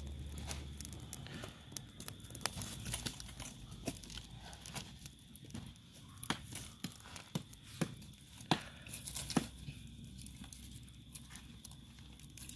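Small wood fire with jackfruit seeds roasting in its embers: irregular sharp pops and crackles over a faint rustle, two louder pops a little after the middle.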